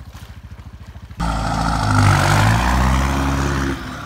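An engine idling with a steady low pulse, then revved loudly about a second in and held for a couple of seconds before easing off.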